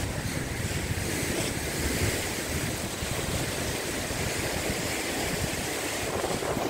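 Rough sea surf breaking and washing over the rocks of a seawall, with wind buffeting the microphone; the low rumble eases off partway through.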